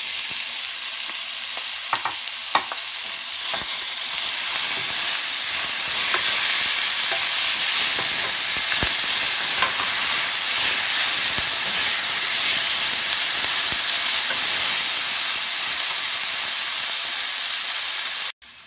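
Shredded chicken frying with onion and tomato in a stainless steel pan, sizzling steadily as a wooden spoon stirs it. A few sharp scrapes and knocks of the spoon against the pan come in the first few seconds, and the sizzle cuts off abruptly near the end.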